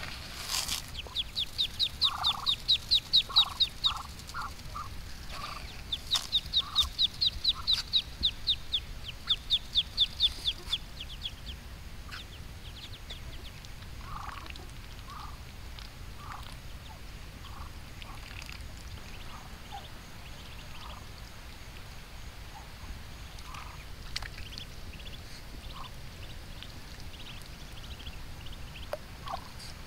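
Muscovy ducklings peeping: two runs of rapid, high peeps in the first dozen seconds, then fainter scattered peeps, with short lower notes in between.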